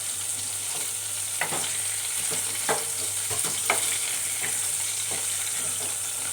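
Brinjal and drumstick pieces sizzling in hot oil in a pan, with a few sharp scrapes and taps of a spatula against the pan as they are scooped out.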